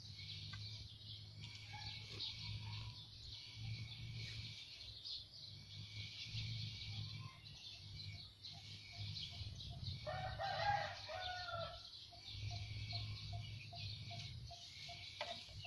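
A rooster crows once, about ten seconds in, over a steady high hiss and a low hum.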